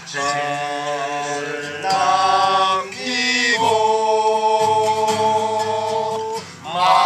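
Men singing a slow Korean song together to an acoustic guitar, drawing out the sung lines into long held notes.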